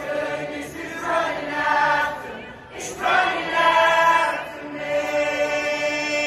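A group of voices singing a worship song together in long held phrases.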